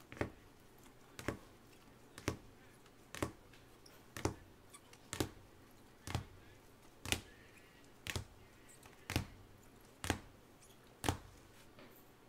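Sports cards in rigid plastic toploaders clicking against each other, one sharp click about every second as each card is moved from the front of the stack to the back.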